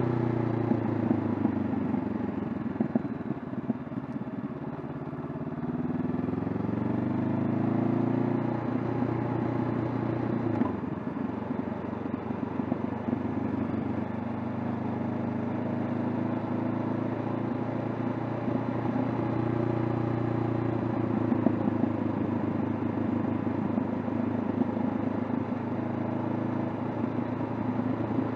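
Honda CB500F's 471 cc parallel-twin engine heard from the rider's seat on the move. Revs fall over the first few seconds, climb again from about six seconds in, break briefly near the middle, then hold fairly steady.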